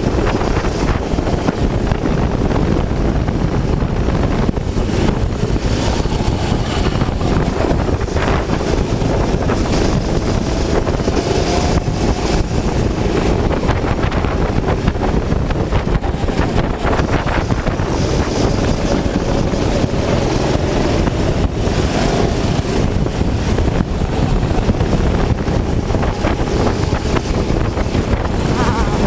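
Go-kart engine running hard at racing speed, recorded onboard, its pitch rising and falling with the throttle under steady, heavy wind noise on the microphone.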